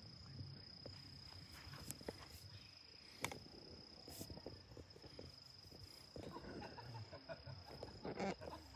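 Insect trilling on one steady high note, faint, with scattered small rustles and knocks of handling, which grow denser and louder near the end.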